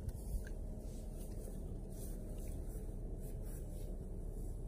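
Steady low background rumble, with one short knock about a third of a second in.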